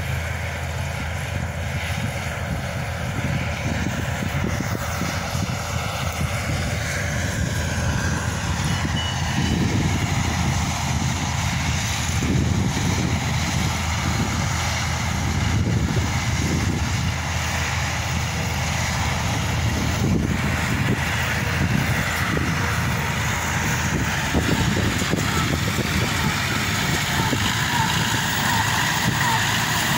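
Combine harvester engine running steadily while harvesting a barley field, a continuous low drone that grows slightly louder a third of the way through.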